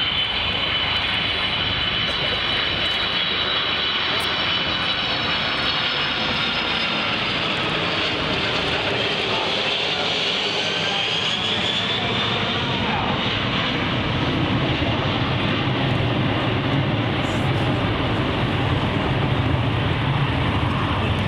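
Boeing 747-400 airliner's four jet engines as it makes a low display pass and climbs away in a banking turn: a steady loud rush with high whines that slowly fall in pitch, then a whine that rises about halfway through. A deeper rumble builds in the second half and grows a little louder toward the end.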